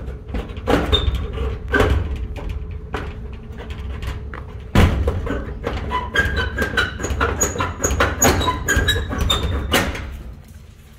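Sheet-metal garden shed door being unlatched by hand: the metal slide bolt scraping and clanking while the corrugated steel door rattles and rings. Irregular knocks throughout, the sharpest about five seconds in, with metallic scraping and ringing in the second half.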